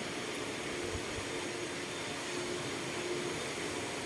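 Steady background noise with a faint hum that comes and goes.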